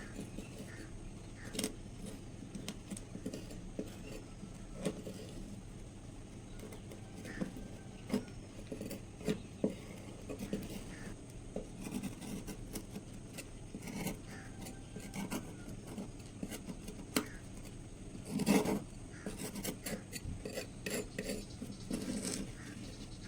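Hand scraping and rubbing at a heavily rusted knife, in irregular strokes with small clicks and knocks, one longer, louder scrape about two-thirds of the way through.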